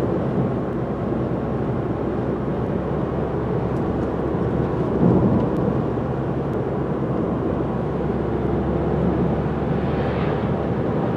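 Steady road and engine rumble inside a moving car's cabin. Near the end an oncoming car passes with a short rising and falling whoosh.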